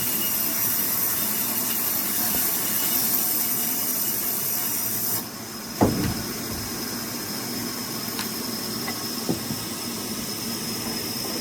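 Sawmill machinery running with a steady noise and a high hiss that cuts off about five seconds in, followed by a single sharp knock, like wood or metal striking, and a smaller click later.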